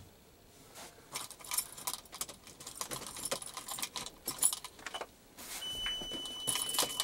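Keys jangling, with scattered light clicks and clinks. About five and a half seconds in, a steady high-pitched electronic tone starts and holds, like a vehicle warning chime.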